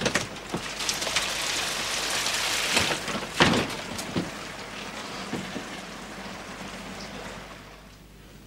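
Rain falling steadily, loudest in the first few seconds and fading away near the end, with a sharp knock about three and a half seconds in.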